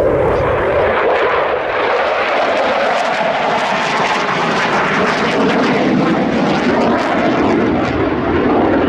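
Jet engine noise of a Saab JAS 39 Gripen fighter flying a display pass overhead: a loud, steady rushing noise that holds level throughout.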